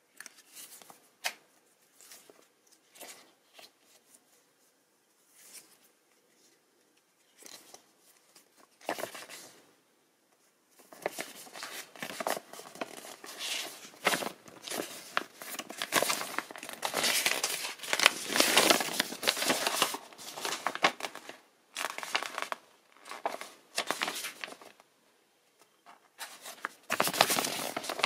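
Paper rustling and crinkling as the phone box's paper booklet is leafed through with light, sparse page flicks. Then comes a longer stretch of louder, dense crinkling as a folded paper leaflet is handled and opened out, with another burst near the end.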